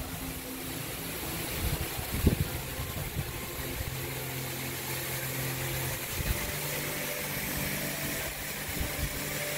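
A steady low mechanical hum from machinery running, over a soft constant hiss, with a couple of brief low thumps about two and six seconds in.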